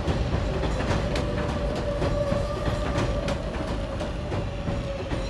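Kawasaki R188 subway train rolling into the station, with a steady whine and the rumble and irregular clicking of its wheels over the rail joints. A higher tone joins briefly near the middle.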